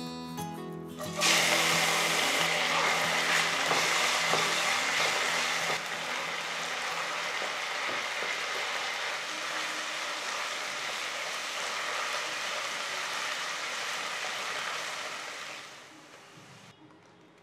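Chopped red onions hitting hot oil in a nonstick kadai, starting suddenly about a second in with a loud sizzle, then frying steadily while stirred with a wooden spatula. The sizzle eases a little partway through and dies away near the end.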